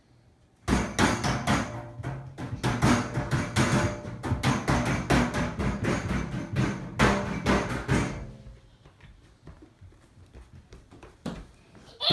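A rapid, irregular run of knocks and bangs starting about a second in, lasting about seven seconds and then fading out, with a low hum underneath.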